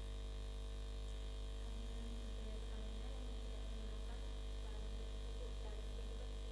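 Steady electrical mains hum, with a faint voice speaking underneath it for a few seconds.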